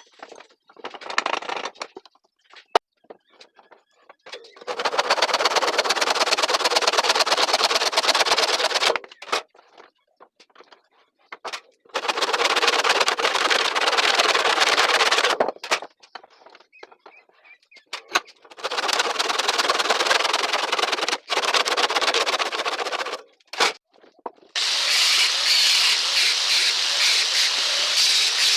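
Wood spinning on a homemade lathe being worked with a hand tool: a rough, noisy scraping in four stretches of a few seconds each, breaking off into near silence between them.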